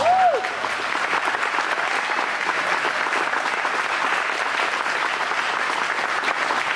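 Audience applauding steadily at the end of a ballroom dance performance, with a couple of short rising-and-falling whistles at the very start.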